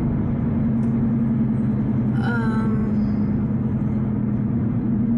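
Steady drone of a car's engine and tyre road noise heard inside the cabin while driving, with a short vocal sound a little over two seconds in.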